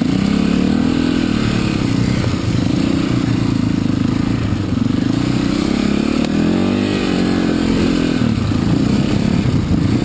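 Dirt bike engine heard close up from the bike itself, its pitch climbing and dropping several times as the throttle opens and closes while riding over rough ground.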